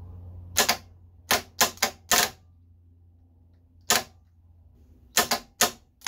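Toyota Denso starter motor's solenoid clicking on the bench as the jumper lead is touched to its terminal: about ten sharp clicks in uneven bursts. The solenoid pushes the pinion gear out but the motor never spins, which the speaker says is generally caused by the solenoid contacts; here the contacts are pitted and one side is badly worn.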